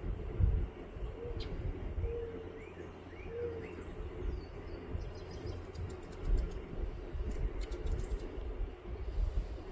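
Birds calling outdoors: a few short, low, cooing notes in the first few seconds and scattered small high chirps, over a low rumble.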